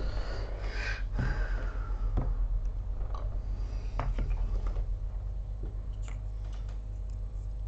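A steady low hum with scattered light clicks and rustles of small tools being handled at a microsoldering bench.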